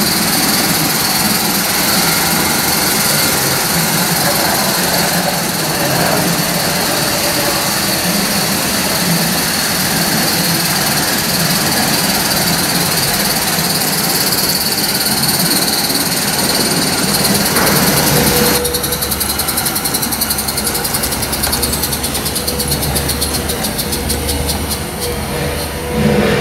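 Gauge 1 model locomotive and coaches running along the track: a loud, steady rushing noise. About 18 seconds in the noise thins out and a low rumble with a faint steady hum takes over.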